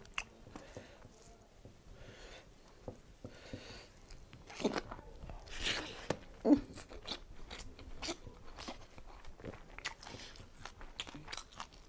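A person chewing and crunching food close to a clip-on microphone. There are scattered small mouth clicks and crackles, with a few louder crunches around the middle.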